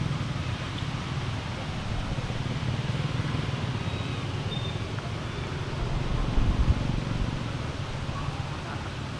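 A steady low mechanical hum, with a brief louder thump about six and a half seconds in.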